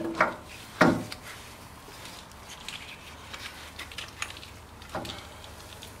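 Rusty forklift brake drum and hub being worked onto the axle, scraping and rubbing over the brake shoes in a tight fit, with a sharp knock about a second in and another near the end and light ticks between.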